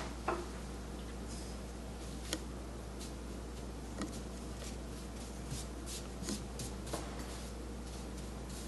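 Chinese ink brush dabbing and stroking on unsized Xuan rice paper: a scatter of short soft taps and scratches, closer together after about five seconds, over a steady low hum.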